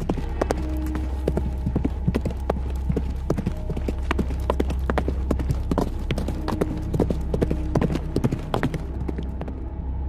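Sound-effect hoofbeats clopping rapidly and unevenly over a steady low hum, stopping about nine seconds in.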